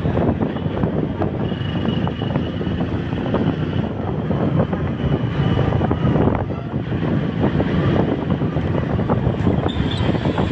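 Wind buffeting the microphone of a moving bike, over a steady vehicle rumble.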